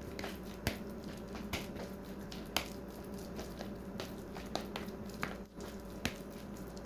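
Spoon mixing mashed banana and dates in a plastic bowl: soft squelching with irregular clicks and taps of the spoon against the bowl. A steady low hum runs underneath.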